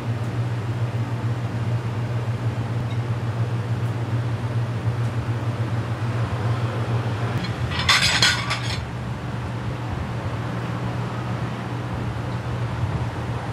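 Steady low hum of kitchen machinery, with one brief clatter of cookware about eight seconds in.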